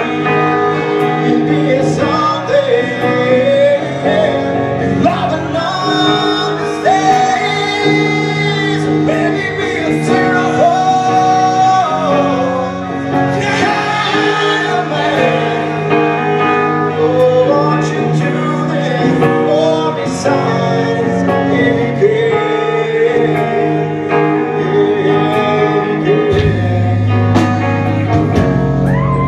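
A live rock band with an electric guitar plays while a man and a woman sing together into one microphone.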